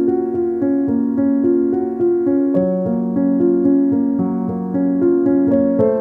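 Background instrumental music on a piano-like keyboard: a steady flow of notes, several sounding together, each one struck and then held.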